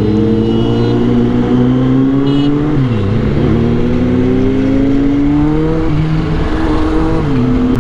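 Motorcycle engine heard from the rider's seat, pulling steadily with its pitch slowly climbing. The pitch dips sharply and recovers about three seconds in, as at a gear change, then steps down again near the end as the throttle eases.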